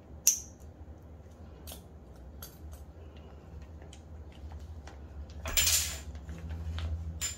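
Small parts handling on a Glock 19 Gen 5's trigger mechanism as the trigger connector is removed: a sharp click just after the start, scattered light ticks, a brief rasp a little past halfway, and another click near the end, over a low steady hum.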